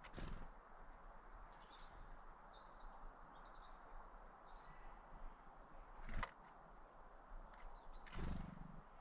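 Small birds chirping in short high notes, busiest from about a second and a half to three and a half seconds in, over a steady outdoor hiss. A few sharp knocks come near the start, about six seconds in and near the end.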